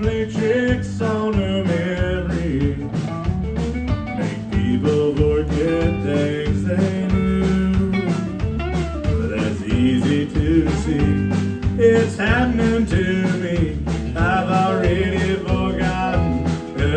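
Live country band playing with a steady beat: acoustic and electric guitars, bass guitar and drums.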